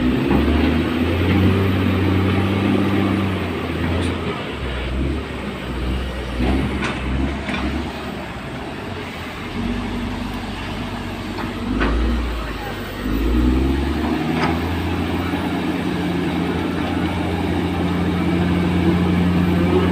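Diesel engine of heavy earthmoving machinery running, its speed rising and falling several times before holding steady. A few sharp knocks are heard along the way.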